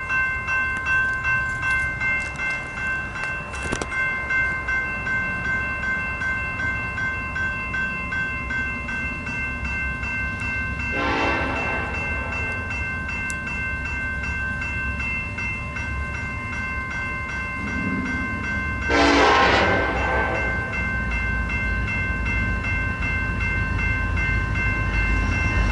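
Diesel freight train led by an EMD SD70ACe locomotive, with a steady low rumble, sounding its air horn: a short blast about eleven seconds in, a longer, louder one around nineteen seconds, and another starting at the very end. A steady high-pitched tone sounds alongside until about eighteen seconds in.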